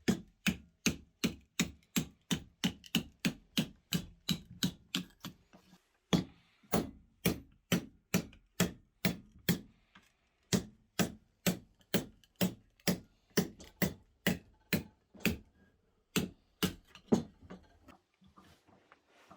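Rapid, evenly spaced blows of a hand tool striking wood, about three a second, with a short pause about six seconds in; the strikes stop shortly before the end.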